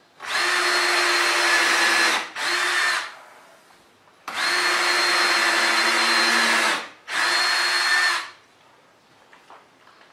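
Cordless drill boring holes down into a wooden framing board: two steady runs of about two seconds, each followed by a short second burst, the motor holding one even pitch throughout.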